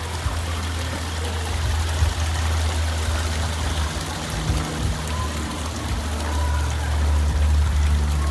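Steady rushing, trickling water noise with a constant low rumble underneath.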